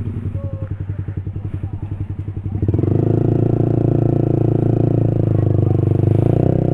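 Honda CB150's single-cylinder engine ticking over with an even pulse, then revved up about three seconds in and held at higher revs as the bike pulls away across soft sand.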